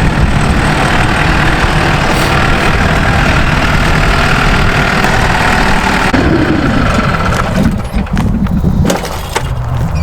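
Tractor engine running with heavy mechanical rattle. About six seconds in, its speed drops, followed by separate knocks and clunks as the auger implement is handled.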